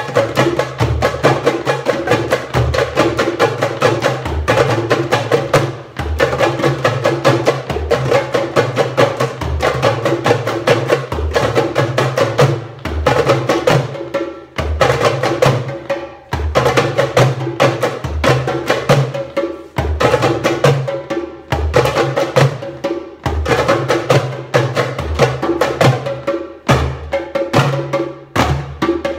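A group of darbukas (goblet drums) played together in a fast Malfuf solo, deep dum strokes mixed with sharp tek strokes, with brief pauses now and then.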